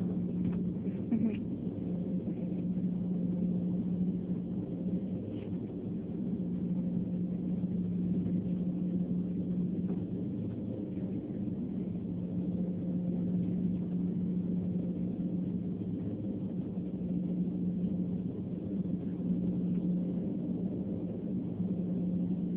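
Steady hum and drone inside an airliner cabin parked on the ground, one constant low tone over an even rumble, with a few faint ticks near the start.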